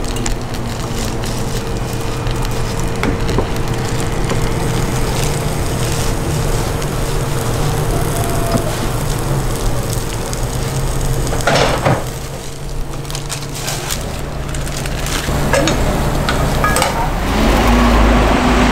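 Food sizzling and crackling on a hot round toast griddle, with the rustle of shredded cabbage being piled on by a plastic-gloved hand over a steady low kitchen hum. A short louder burst comes about twelve seconds in.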